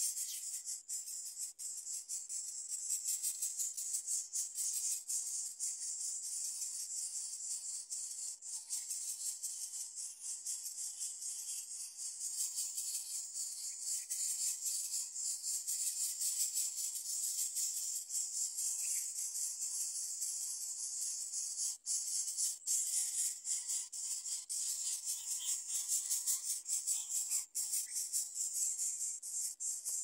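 Insects chirring steadily in a high-pitched, fast and even trill.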